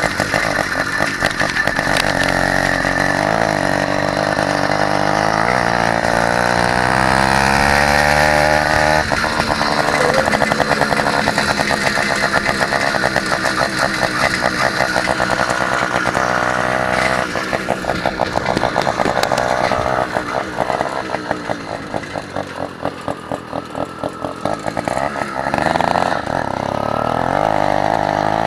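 Small two-stroke gas engine on a motorized Huffy bicycle running under way, its buzz rising and falling in pitch as the throttle opens and closes. It eases off and drops quieter about twenty seconds in, then picks up again near the end.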